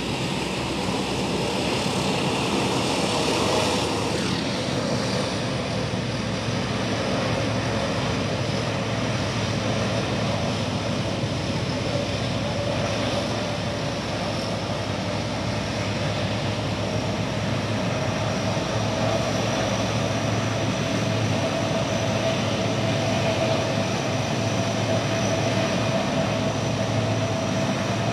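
Lockheed C-130 Hercules turboprop engines running on the ground with the propellers turning: a steady drone with a whine that grows stronger and rises slightly in pitch in the second half.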